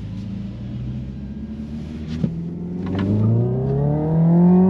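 Hyundai Ioniq 5 N's synthetic engine sound playing through the cabin speakers: a low steady drone, then a rising engine-like note from about two and a half seconds in as the car accelerates. A short click about two seconds in.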